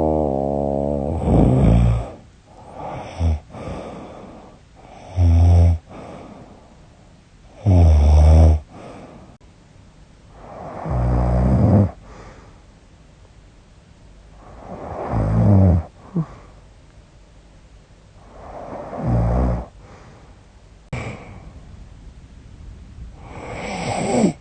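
A woman snoring loudly in her sleep: about eight rough snores at uneven intervals of a few seconds, some with a low buzzing pitch, with quieter breathing between them. The snorer herself suspects sleep apnea.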